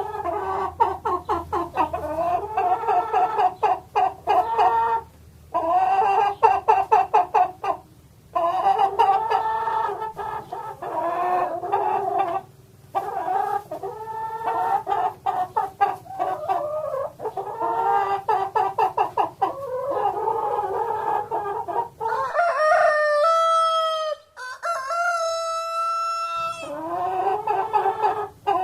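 Chickens clucking in rapid bouts of short, pitched calls, broken by brief pauses. Near the end, a rooster crows in two long, drawn-out notes.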